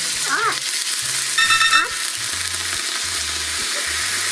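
Flour-and-water slurry poured onto a hot oiled electric hotplate sizzling loudly and steadily as it boils off into steam; this is the slurry that forms crispy gyoza 'wings'. A brief high-pitched note sounds about a second and a half in.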